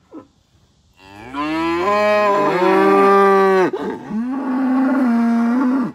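A cow mooing twice, loud and long: the first moo rises in pitch about a second in and is held, and the second is lower and steady and cuts off suddenly near the end.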